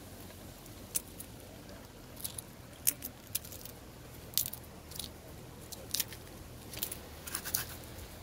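Roasted cocoa beans being cracked and shelled by hand: about fifteen small, sharp cracks and clicks of the brittle husks at irregular intervals, the loudest about three seconds in.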